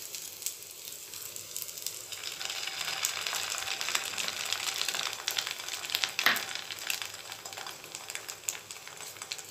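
Beaten egg sizzling as it is poured into hot butter in a nonstick pan, filling the hollow of a bread slice. The sizzle grows louder about two seconds in, with one sharp click about two-thirds of the way through.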